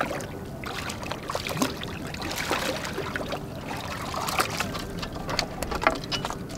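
Shallow seawater sloshing and splashing among rocks in short irregular bursts, with sharp clicks, as a hand and a poke pole work in the water.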